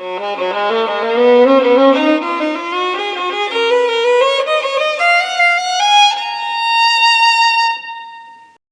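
Violin playing a fast run of notes that climbs in pitch, ending on a long held high note that fades out.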